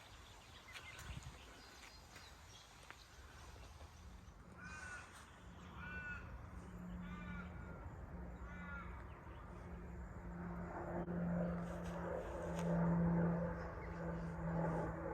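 A crow-like bird gives four harsh calls a little over a second apart, in the middle of the stretch. A low steady drone builds up underneath from about the same time and is loudest near the end.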